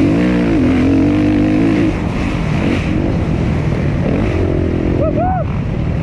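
Suzuki RM-Z250 four-stroke single-cylinder dirt bike engine being ridden hard: it revs up and holds high for about two seconds, drops off, then keeps pulling with the pitch rising and falling as the throttle changes.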